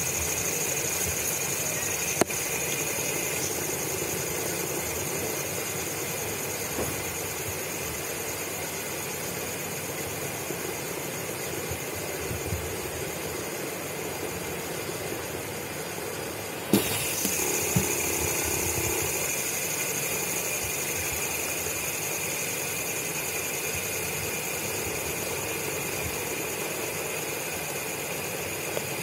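Steady hum and hiss of a running machine with a faint high whine. There is a sharp click about two seconds in, after which the whine drops away, and another about seventeen seconds in, when it comes back.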